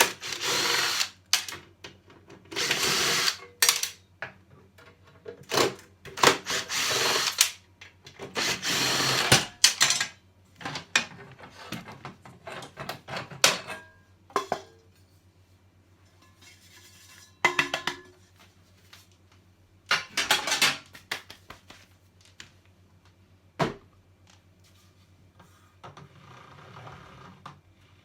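Power drill run in short bursts of about a second, several times over, while a table saw is being taken apart for scrap, with a few sharp knocks between bursts and a low steady hum underneath.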